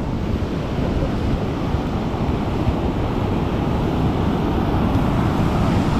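Ocean surf breaking and washing up the beach, with wind rumbling on the microphone; the sound is a steady wash with no separate events.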